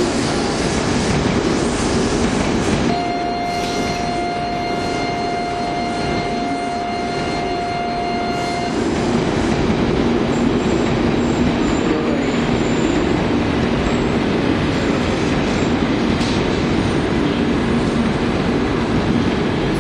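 Tokaido Shinkansen train rolling slowly along the station tracks, with the steady running noise of its wheels on the rails. About three seconds in, a steady high tone starts and is held for about six seconds.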